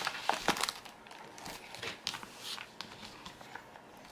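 Mailer packaging rustling and crinkling as cardboard and bubble mailers are handled on a table, with scattered short rustles and light taps, busiest in the first half second.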